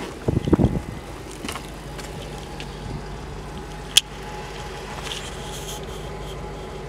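Dodge Challenger SRT8's 6.1-litre Hemi V8 idling with a steady hum. A couple of low bumps come in the first second, and a single sharp click about four seconds in.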